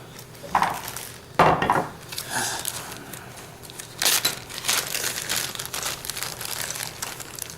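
Hands sorting through a pile of loose airsoft gearbox parts: irregular rustling and small knocks, loudest about a second and a half in and again at four seconds.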